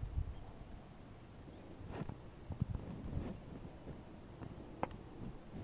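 Insects chirping in a steady pulsing rhythm, about two to three pulses a second, over a constant high hum. Scattered low bumps and one sharp click near the end.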